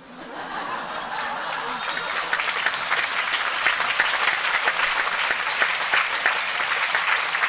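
Audience applauding, swelling up over the first couple of seconds and then holding steady.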